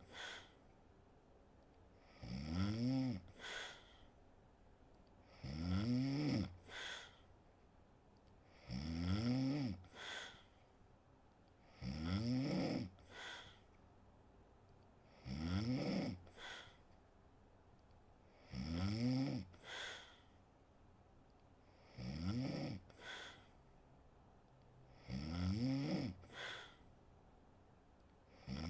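A sleeping woman snoring in a slow, even rhythm, about one snore every three seconds, eight in all. Each snore rises then falls in pitch and is followed by a short, quieter puff of breath.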